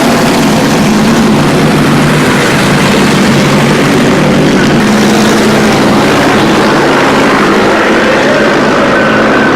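Vintage IndyCar racing engines running loud and steady, their pitch shifting up and down a little.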